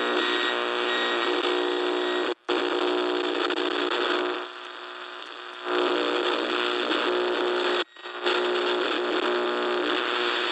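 AM radio static: a harsh, steady buzzing hum over hiss. It cuts out briefly twice and drops to a quieter hiss for about a second in the middle.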